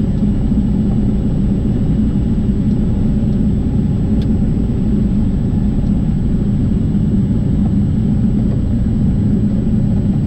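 Diamond DA40 single-engine light aircraft's piston engine and propeller running at low taxi power, a steady, even rumble heard inside the cabin.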